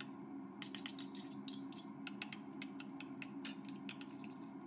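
A metal spoon stirring warm milk, yeast and butter in a small ceramic bowl, clinking against the sides in quick, irregular light ticks.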